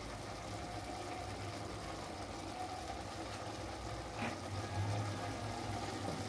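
A steady low hum with a faint background hiss, and a single light click about four seconds in.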